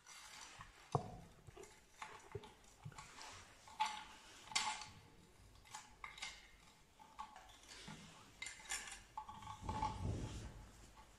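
Irregular metallic clinks, taps and knocks of parts being handled and fitted on a Peugeot 103 moped engine, with a louder low rumbling scrape near the end.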